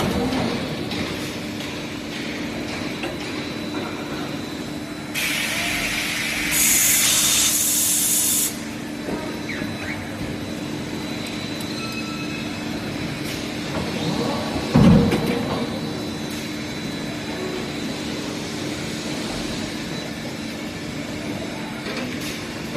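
Forging production line machinery running with a steady hum. A loud hiss of air or spray starts about five seconds in and lasts about three seconds, and a single heavy thump comes near the middle.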